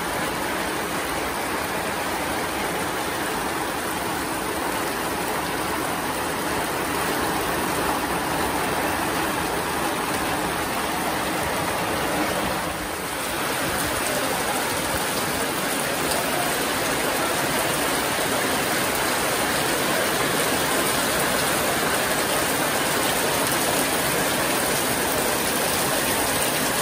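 Heavy tropical rain pouring down steadily, splashing on wet wooden veranda boards.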